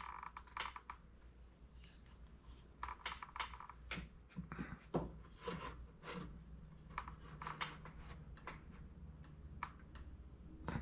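Faint, irregular clicks and taps with light scraping as a wooden base board is slid and set down on a stack of wooden boards.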